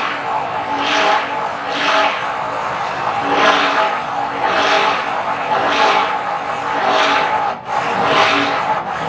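Idealife electric stick blender running continuously in a tall plastic cup, churning a thick mixture that is turning into gel. A steady motor whine is overlaid with swishing surges about once a second as the blade head is worked up and down. The sound dips briefly once near the end.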